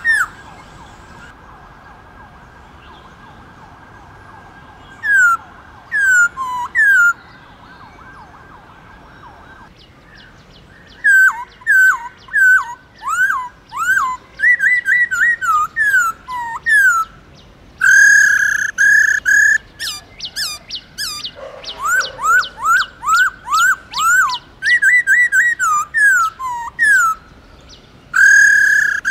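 Black-throated laughingthrush singing. After a few quiet seconds it gives a few clear whistled notes, then a long, fast run of loud whistles, each sliding down in pitch.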